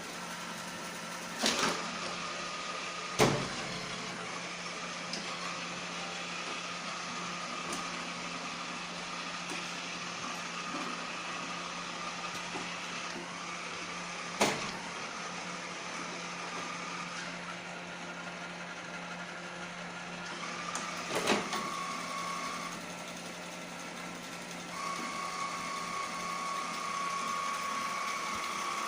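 Iseelife robot vacuum running with a steady motor hum and whine that shifts in pitch a few times, with four short sharp knocks.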